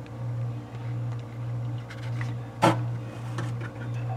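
Handling noise inside a wooden speaker cabinet: one sharp knock about two and a half seconds in, then a few lighter clicks, over a steady low hum.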